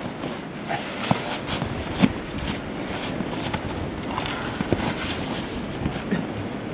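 Footsteps crunching on snow and dry leaves with scattered short knocks of wood being handled, the sharpest about two seconds in, over a steady hiss.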